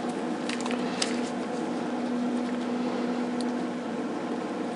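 A steady mechanical hum carrying a faint held tone, with a few light clicks and taps as a small plastic hour meter is handled and pressed onto a generator's plastic housing.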